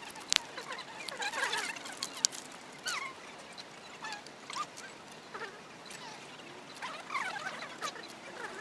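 Background sound of people talking, sped up fourfold into high, rapid chipmunk-like chatter, in clusters with pauses between, and a few sharp clicks.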